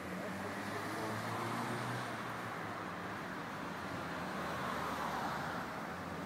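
Street traffic: cars passing on the road, a steady hum of engines and tyres that swells twice as vehicles go by.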